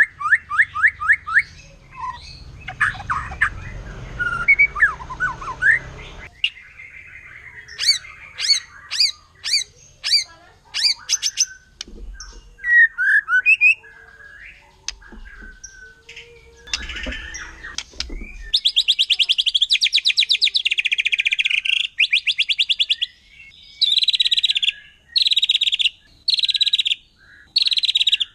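White-rumped shama (murai batu) singing a varied song of whistles, chirps and trills. Partway through it switches to fast, harsh rattling phrases about a second long, repeated with short gaps: the 'tembakan' (shooting) phrases that keepers say rouse other shamas.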